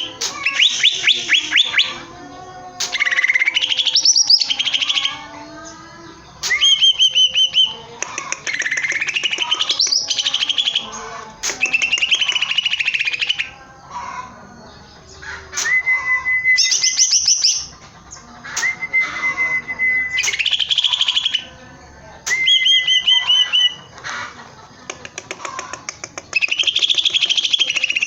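Cucak ijo (green leafbird) singing loudly and without let-up: varied phrases of one to three seconds, made of fast trills, rising whistles and held notes, repeated with short pauses between them.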